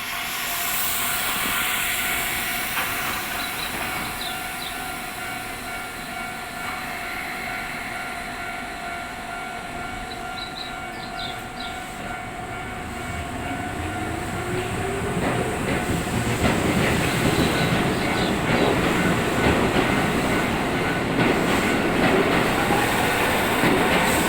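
Railway level-crossing warning alarm ringing steadily. About two-thirds of the way in, a Keisei Kanamachi Line electric train moves through the station crossing, with a slowly rising motor whine and louder wheel-on-rail noise, clattering over the rail joints.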